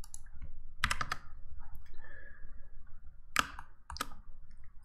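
Computer keyboard keystrokes and mouse clicks: a quick cluster of clicks about a second in and a few more around three and a half seconds.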